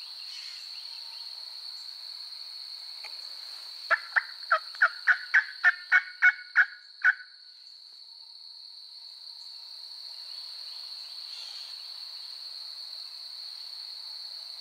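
A series of about a dozen turkey yelps, evenly spaced at roughly three a second, lasting about three seconds. Under it runs a steady high-pitched insect buzz.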